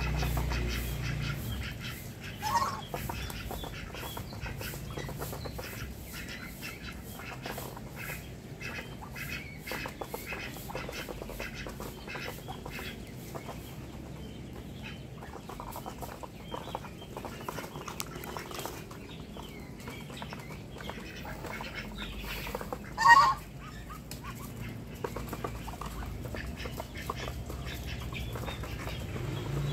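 Ducks feeding from a tray, their bills dabbling and tapping in a fast, continuous patter of small clicks. One short, loud bird call cuts in about two-thirds of the way through, with a fainter one near the start.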